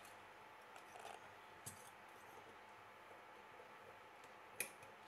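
Near silence, with a few faint metal clicks as small pliers dig at the PTFE needle-packing seal inside an Iwata Revolution TR-1 airbrush body; the sharpest click comes near the end.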